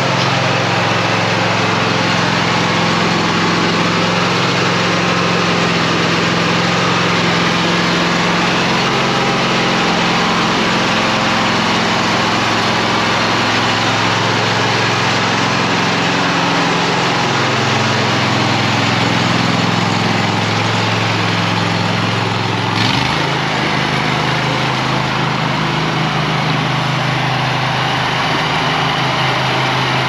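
Toro stand-on mower with a snowblower attachment, its engine running steadily while it is driven; the engine note shifts partway through and changes abruptly about three-quarters of the way in.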